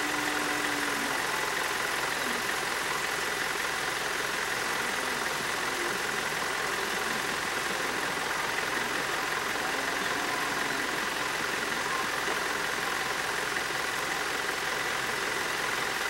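A vehicle engine idling steadily at an even level.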